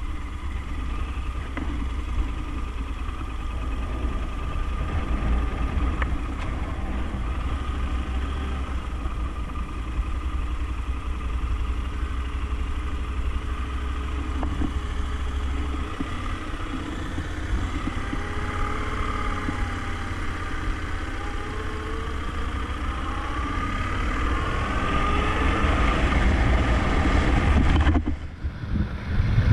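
Yamaha Ténéré adventure motorcycle engine running at low speed while rolling, then pulling away with its pitch rising and falling through the gears and the sound growing louder. It dips briefly near the end.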